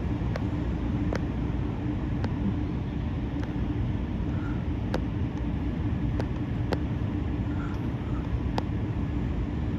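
City street traffic: a steady low rumble and engine hum from vehicles, with a few sharp, brief clicks scattered through it. No church bells are ringing.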